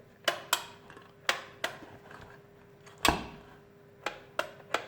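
Sharp clicks and knocks of an electric kettle being handled, about eight in all with the loudest about three seconds in, over a faint steady hum.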